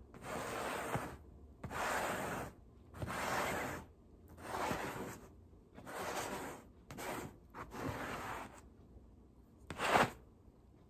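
Uproot Clean handheld pet-hair remover scraped back and forth across a fabric couch cushion, raking up cat hair. There are about eight rasping strokes, the last one short and sharper.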